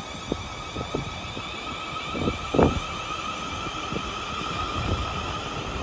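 Class 444 Desiro electric multiple unit pulling away slowly, its traction equipment giving a steady high whine of several layered tones. Irregular low knocks run underneath, the loudest about two and a half seconds in.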